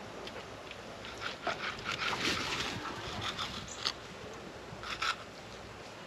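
Fillet knife slicing through a snapper fillet and scraping on a concrete cleaning table: short, irregular scrapes and clicks, thickest in the first half, with a couple of sharp taps later.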